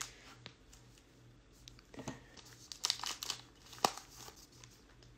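A trading-card wax pack's wrapper being snipped with scissors and crinkled as it is opened and the cards are pulled out: scattered soft crinkles and a sharp click just before four seconds in, over a faint low hum.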